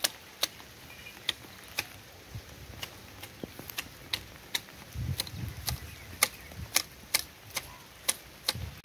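Hand hedge shears snipping ficus topiary foliage, the blades clacking shut about twice a second in an uneven rhythm.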